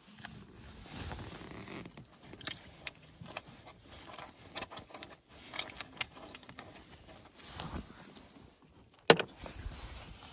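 Mussel shells clicking and scraping against rock and each other as a gloved hand pulls them from a tidepool rock, in irregular small clicks. One sharp click about nine seconds in is the loudest.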